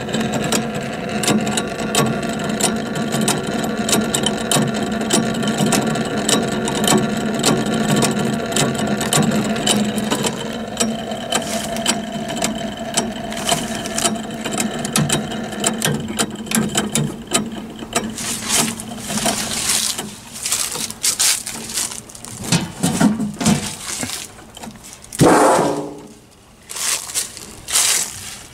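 Thunderbolt 1003 siren's control equipment running: a steady electrical hum with fast, fine clicking of relays and timers. Toward the end the hum breaks up into short bursts, with a brief falling whine and a few sharp clicks.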